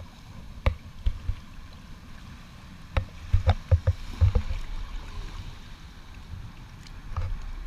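Seawater sloshing and lapping right at the microphone, with the camera held at the surface of a rocky cove. There are irregular splashes and knocks of water against it, thickest about three to four and a half seconds in as a surge washes in.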